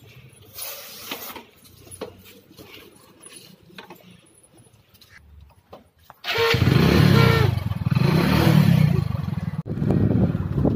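Scattered small clicks and rustles, then about six seconds in a motorcycle running on the road, loud, with rushing road and wind noise. It breaks off briefly near the end and starts again.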